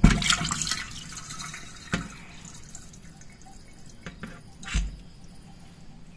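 Stainless steel drain stopper being handled in a stainless steel sink: a metallic clatter with a short ringing rattle as it is lifted from the drain, then a knock about two seconds in and another near the end as it is set down on the sink floor.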